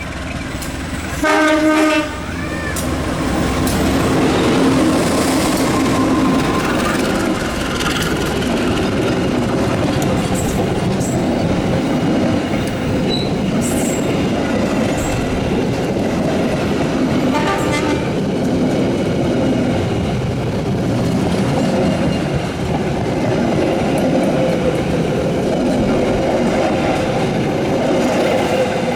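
A train sounds its horn in one short blast about a second in, then runs past with a steady rumble of wheels on the rails. A second, fainter horn blast comes about halfway through.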